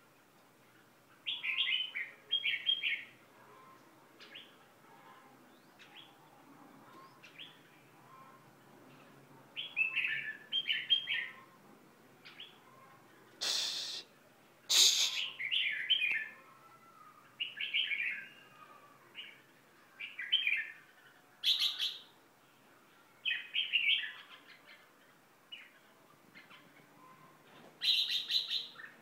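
Caged songbirds singing short chirping phrases in bursts every second or two. Two louder, sharp sounds stand out about halfway through.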